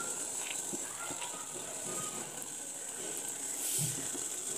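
Sugar syrup boiling in a steel pot on a gas burner while a wooden spatula stirs it: a steady hiss with faint ticking bubbles. There is a brief louder knock near the end.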